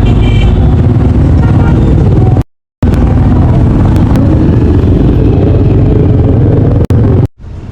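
Loud, steady low rumble of a vehicle in motion. The sound cuts out for a moment about two and a half seconds in, and again near the end.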